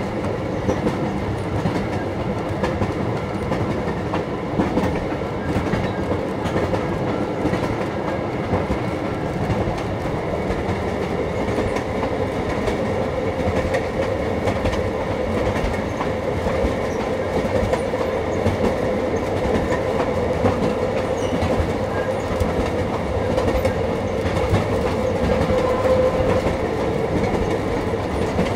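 Passenger train rolling steadily along the track: continuous rumble and clickety-clack of the car's wheels on the rails, heard from inside an open-sided passenger car.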